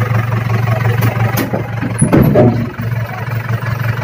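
A small dump truck's engine idling steadily, with a few short knocks and clatter about a second in and around the middle.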